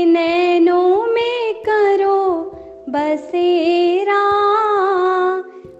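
A woman singing a Hindi devotional bhajan in two long phrases of gliding, held notes, with a short break about halfway. A steady drone accompanies her.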